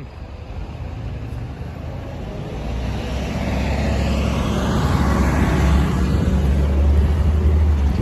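Road traffic at a busy intersection: vehicles pass, with a steady low rumble that grows louder from about two seconds in as a vehicle approaches and goes by close, loudest near the end.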